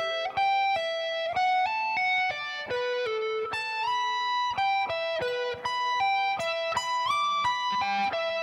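Electric guitar playing a single-note lick slowly, about two or three notes a second: A minor 7 and B minor 7 arpeggios, an E minor triad, then a slide up the neck into an E minor 7 arpeggio. The last note is held and rings out near the end.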